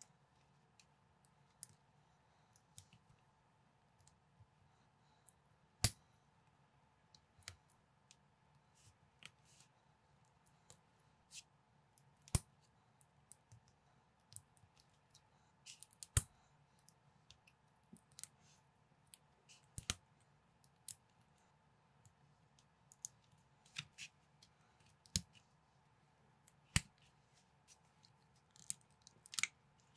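Plastic building bricks clicking as they are fitted and pressed together by hand: irregular sharp clicks every second or few seconds, over a faint steady hum.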